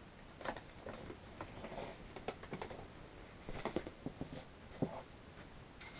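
Scattered soft knocks, clicks and rustling of a person getting up from a swivel office chair and moving about close to the microphone.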